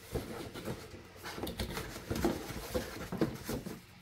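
A cardboard box and a flat, wrapped screen protector package being handled and lifted out: irregular rustling, scraping and small knocks that die away near the end.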